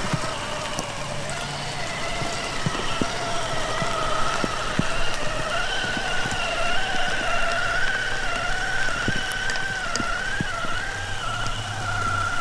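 Whine of the RC truck's HobbyWing XeRun sensored brushless motor, its pitch wavering slightly up and down with the throttle as the truck crawls through long grass, over a steady hiss of grass brushing past the truck and scattered small clicks.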